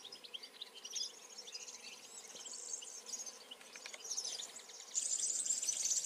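Many small songbirds chirping and twittering in short, thin, high calls, becoming denser and louder about five seconds in.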